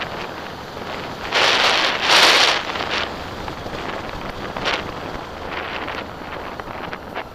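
Wind buffeting the microphone of a camera mounted on a motorcycle riding along a gravel track, with a loud gust about one and a half to two and a half seconds in.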